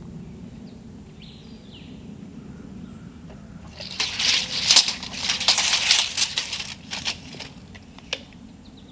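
Scraping, rattling handling noise for about three and a half seconds from about four seconds in, as tools are worked on a 2x4 board, followed by two sharp clicks.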